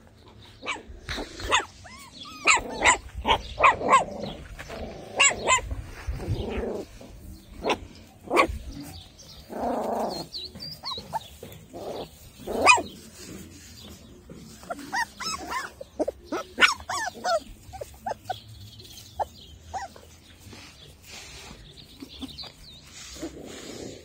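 A litter of young puppies yipping and barking in many short, sharp calls, busiest in the first half and thinning out toward the end.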